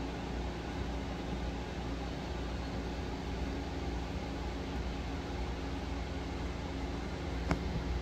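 Steady hum and hiss of aquarium equipment such as a pump or filter running, with a single short click near the end.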